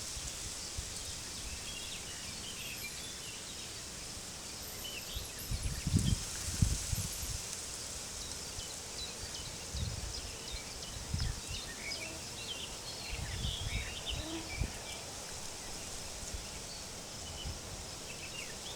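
Field ambience: wind gusting in low rumbles on the microphone, about six seconds in and again several times later, over a steady high hiss, with faint scattered bird chirps.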